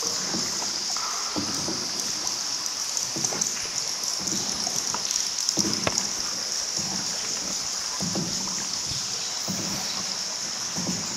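Paddle strokes dipping into river water about every second and a half as a small boat is paddled along, over a steady high-pitched hiss.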